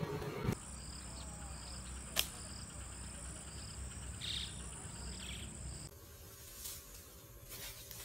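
Insects buzzing: a steady high drone with a chirp repeating a few times a second. A single sharp snap cuts through about two seconds in.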